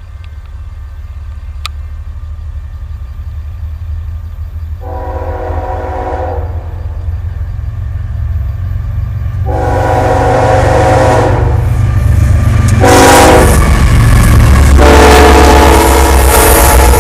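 Approaching train sounding its air horn in the grade-crossing pattern: two long blasts, a short one, then a long one, over a low rumble that grows steadily louder as it nears.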